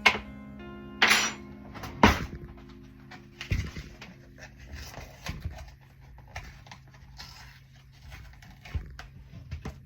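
Irregular knocks and clatters of kitchen utensils and containers being handled, loudest about one and two seconds in, over soft background music.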